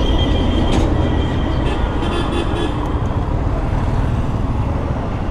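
Suzuki Hayabusa idling at a standstill with a steady low rumble, while road traffic, including a truck and motorcycles, passes by.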